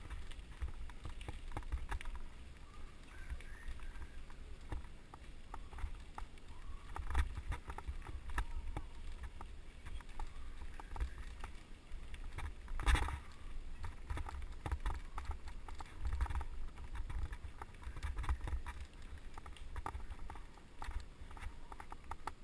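Mountain bike ridden over a rough dirt path: a steady clatter of small knocks and rattles from the bike over a low wind rumble, with one sharper jolt about thirteen seconds in.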